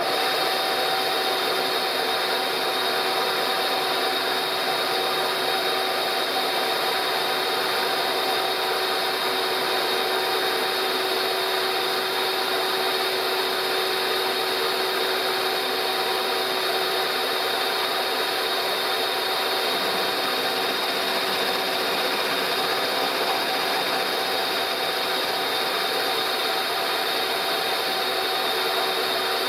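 Milling machine running a slitting-saw type cutter into the welded brake caliper mounting lug: a loud, steady machining sound, constant tones over a rough hiss, that starts abruptly and holds unchanged.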